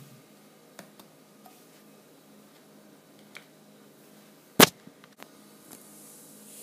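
One sharp, loud click from a glass jar's metal screw lid as it is handled, a little past halfway, among a few faint handling ticks.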